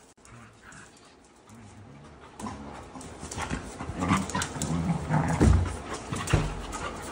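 Two dogs jostling and jumping up close to the microphone, panting and making short low vocal sounds amid scuffling. It turns louder and busier about two and a half seconds in, with a couple of heavy thumps past the middle.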